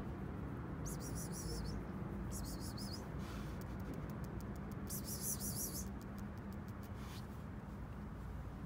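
Small birds chirping in three short bursts over a steady low street hum.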